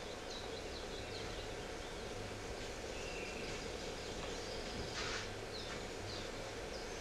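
Outdoor bird ambience: many short, high chirps of small birds scattered over a steady background hiss and low hum.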